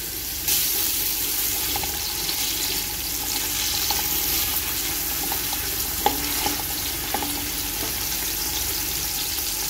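Sliced onions sizzling in hot oil in a metal pot, the sizzle growing louder about half a second in. A spatula stirs them now and then, with a few light taps.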